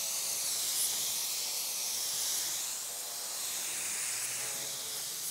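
Compressed-air paint spray gun spraying paint in a steady hiss that wavers slightly as the gun moves along the taped edge.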